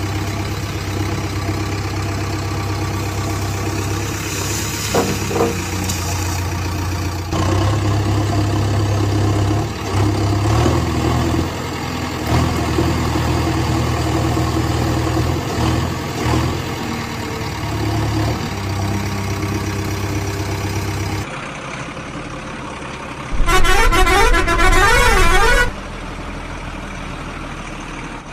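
Steady low rumble of a heavy truck engine running, shifting in level a few times. Near the end comes a loud warbling horn lasting about two seconds.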